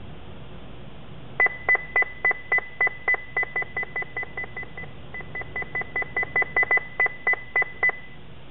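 Escort 9500ci radar detector beeping once per volume step as its volume is adjusted: about thirty short high beeps, three or four a second. They grow quieter as the volume is stepped down, then, after a brief pause, louder as it is stepped back up.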